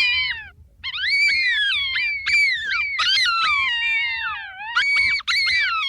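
Jackals howling and yipping together, several high, wavering voices overlapping, with a short break about half a second in.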